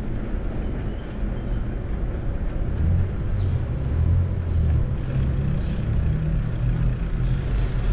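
Steady low rumble of wind buffeting the microphone and tyre noise as a bicycle rolls along an asphalt street, heavier from about three seconds in, with a few faint short high sounds.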